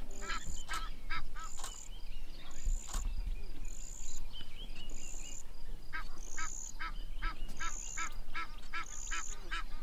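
Rapid series of short honking animal calls, about three a second, coming in two runs with a quieter stretch in the middle; a high shrill note repeats about once a second behind them.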